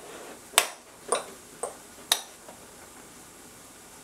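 A metal fork clinking against a ceramic plate four times, about every half second, while mashing cooked sweet pumpkin; the first clink is the loudest.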